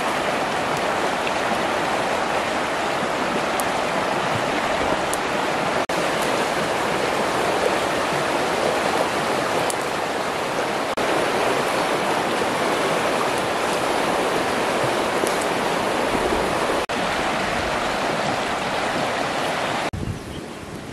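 Fast-flowing river rushing over rapids: a steady, loud wash of water.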